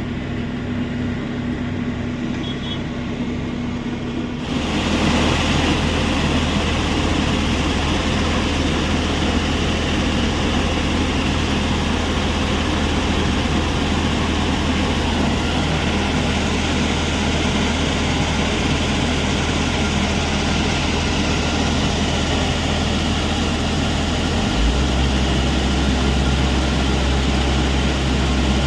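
Heavy diesel machinery at a stone crusher plant running steadily: a low engine drone that turns suddenly louder and noisier about four seconds in, with a steady low hum underneath that shifts pitch near the end.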